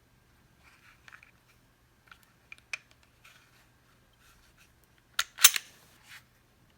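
Smith & Wesson M&P 2.0 pistol being handled: light metal clicks and scrapes, then a loud sharp clack with a brief sliding scrape about five seconds in.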